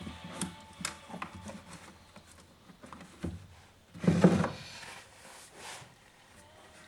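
Light clicks and knocks of parts and tools being handled, with a louder, brief scraping rustle about four seconds in.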